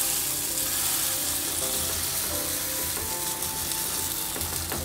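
Potato and gram-flour chilla batter sizzling steadily in hot oil on a non-stick tawa as it is ladled in and spread with a steel ladle.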